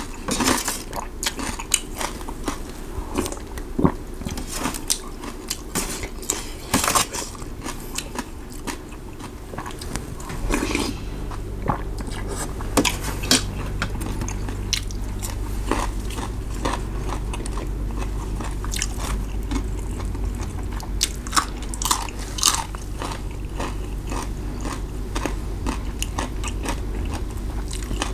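A person eating braised beef noodle soup: chewing and biting, with many short clicks and crunches. A low steady hum comes in about ten seconds in.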